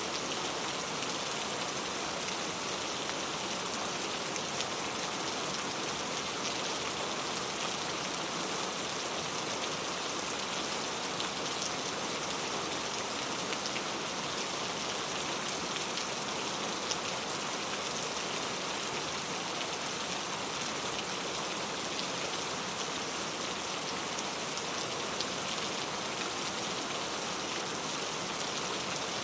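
Steady rainfall: an even hiss of rain with scattered individual drops ticking.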